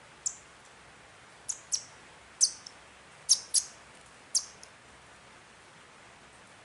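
Seven short, high-pitched chirps from a small animal, coming irregularly over about four and a half seconds, each one sharp and quickly fading.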